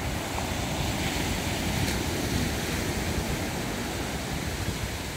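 Small waves washing up a sandy beach: a steady surf hiss with a rumbling, fluctuating low end.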